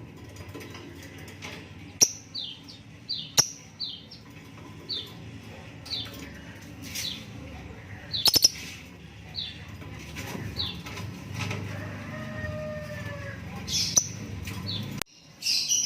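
Lovebirds chirping: a string of short, high chirps that each drop quickly in pitch, with several sharp clicks among them and a longer, lower falling tone about twelve seconds in.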